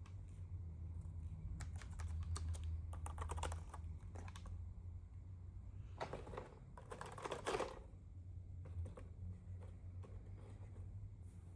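Keys of an Anko multimedia keyboard being pressed, in irregular runs of clicks with a denser flurry about six seconds in, over a steady low hum.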